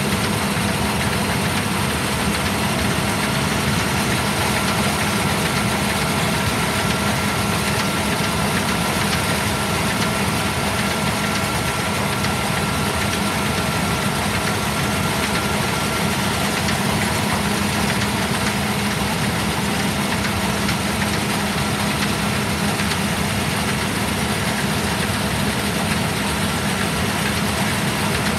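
John Deere combine's diesel engine idling steadily, with a constant low hum and a faint steady whine above it.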